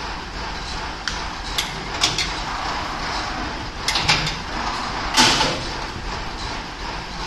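Automatic spiral coil binding machine running with a steady mechanical hum, its mechanism giving sharp clicks and clacks at irregular intervals, several in quick succession around four seconds in and the loudest single clack about five seconds in.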